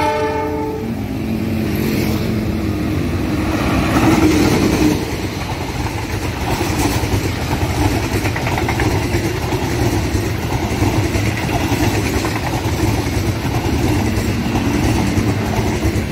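Diesel-electric passenger train passing close by. The CC 206 locomotive's engine grows loudest about four to five seconds in as it goes past, and then the coaches roll by with a steady rumble and clatter of wheels on the rails.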